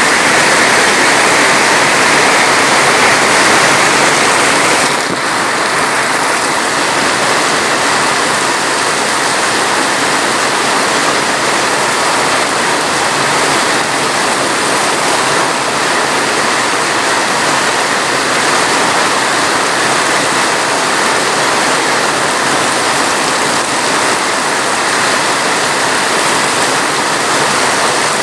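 Steady, heavy rain falling as a continuous hiss with no distinct drops, easing slightly about five seconds in.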